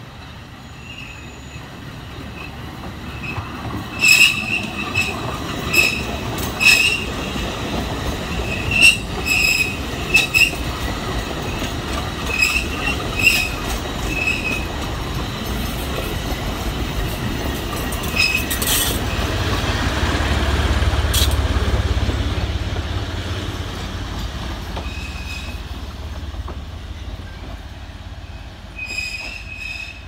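Alishan Forest Railway narrow-gauge train running past close by on a curve: wheels squealing in short high chirps and clicking over rail joints. A low rumble grows, is strongest about twenty seconds in as the cars go by, then fades; more wheel squeal comes near the end.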